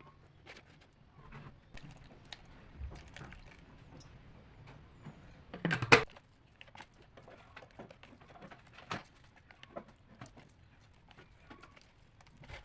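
Scattered light clicks and knocks, as of small objects being handled, with one louder clatter about six seconds in.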